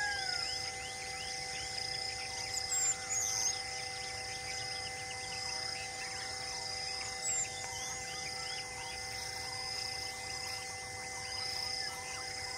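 Steady high insect chorus that pulses on and off, with a few short high bird chirps about three seconds in and again past seven seconds, over a steady held low hum.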